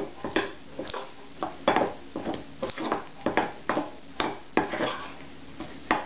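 Metal spoon clinking and scraping against a china bowl while stirring a thick mayonnaise-and-flour batter, about three strokes a second.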